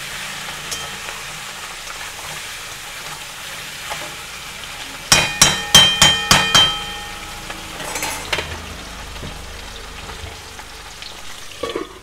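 Food sizzling as it fries in hot oil in a pan. A little before the middle, a metal utensil strikes the pan about six times in quick succession with a ringing clank, followed by a softer scrape.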